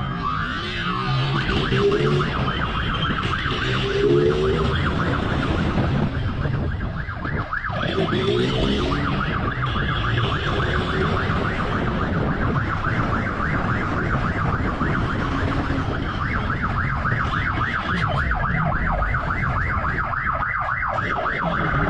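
Police motorcycle siren on a fast, rapidly repeating warble, over the steady rumble of the motorcycle's engine.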